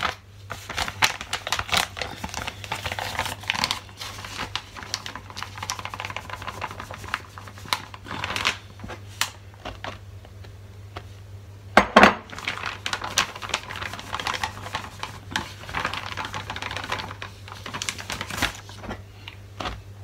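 Plastic bag of tapioca starch crinkling and rustling as the starch is poured, with clicks and knocks of a ceramic mug against a glass bowl; one sharp knock about twelve seconds in.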